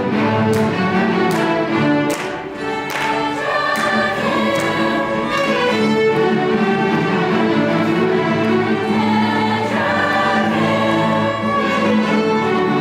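Large string ensemble of violins and cellos playing together in full chords, with several sharply accented bow strokes in the first few seconds, then long held chords.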